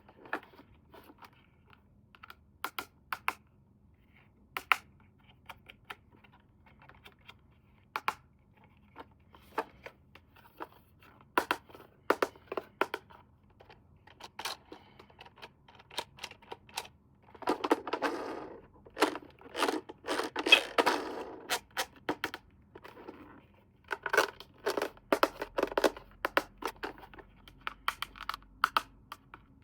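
Toy packaging being handled and opened by hand: scattered sharp clicks and knocks, with longer stretches of rustling, scraping and tearing in the second half.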